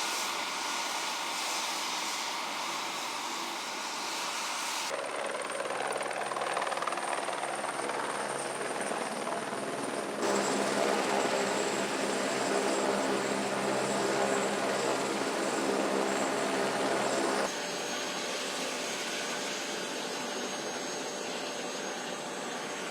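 Steady engine noise with a few held tones, in clips joined by abrupt cuts about five, ten and seventeen seconds in; it is loudest between ten and seventeen seconds.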